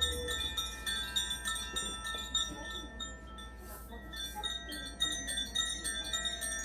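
Makino-style Advance Chimes being struck again and again, many clear high tones ringing on and overlapping, with quiet talking from the audience underneath.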